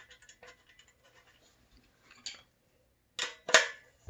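Hand-tool work on a motorcycle exhaust mount bolt: faint scraping and light clicking, a short sharp noise a little after two seconds, then two louder clatters about three seconds in.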